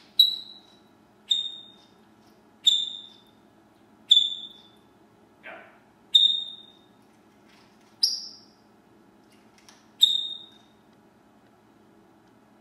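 African grey parrot giving a series of short, high whistled notes, seven in all, each fading quickly, with one lower whistle gliding down in pitch about halfway through.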